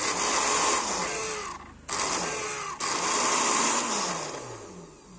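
Philips HR1731 blender's motor running with the jar off, in runs broken by short stops, then winding down and fading near the end.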